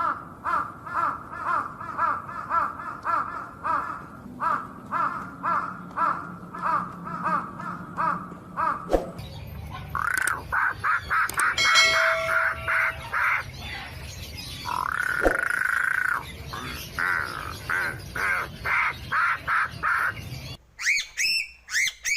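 Crows cawing: a fast run of short, evenly repeated caws, then after a brief break more caws and one longer drawn-out call. A few higher gliding, whistle-like notes come near the end.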